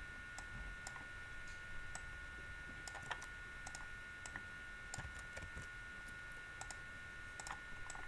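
Faint, irregular clicking of a computer mouse and keyboard, a few clicks a second at uneven spacing, over a faint steady high electrical whine.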